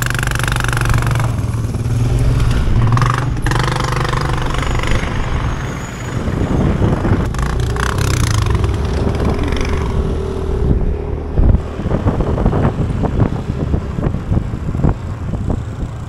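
Motor scooter engines running on the move. The sound is steady at first and turns into a rougher, uneven rumble from about six seconds in.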